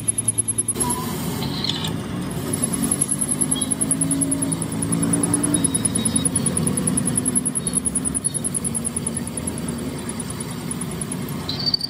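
Drill press running, its twist bit cutting into a steel axle shaft and throwing long spiral chips. A steady hum goes with a rapid, even high-pitched chatter.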